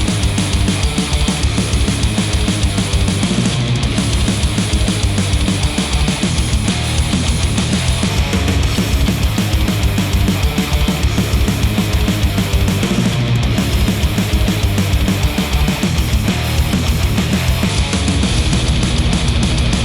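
Loud, fast heavy rock music with a driving beat, played through open-back planar headphones and picked up by microphones at the earcups.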